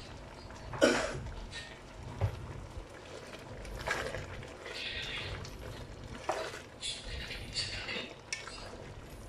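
Wooden spoon stirring pork in an aluminium pot, scraping and knocking against the pot's sides and bottom in scattered irregular strokes.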